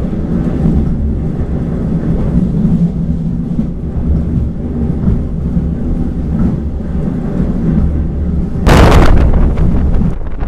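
Steady low rumble and engine drone of a diesel railcar under way, heard from on board. Near the end a loud rush of wind hits the microphone for about a second, and the rumble goes on under the wind.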